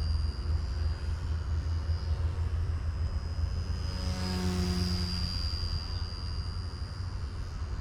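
Small electric RC helicopter (Eachine E160 collective pitch) flying overhead, giving a high, steady whine that wavers slightly over a low rumble. A lower buzzing tone swells briefly about four to five seconds in.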